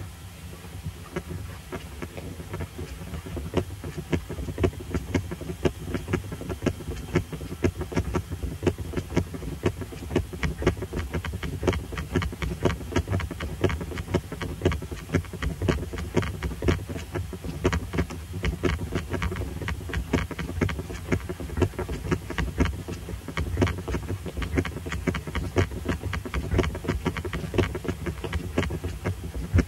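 Muffled knocks, rattles and footsteps heard through a microphone hidden inside an attaché case as it is carried by someone walking, several small knocks a second over a steady low rumble. The knocking grows louder three or four seconds in.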